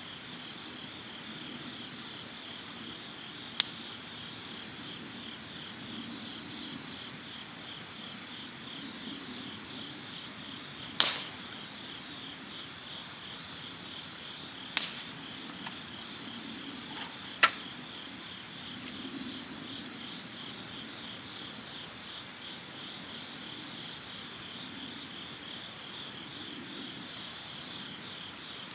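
Insects chirping in a steady, fast-pulsing high trill, with four sharp clicks or snaps standing out over it about 4, 11, 15 and 17 seconds in.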